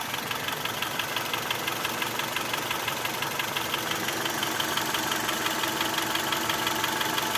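Honda Accord F18 four-cylinder engine idling warm with a fast, regular knock ticking over the running sound.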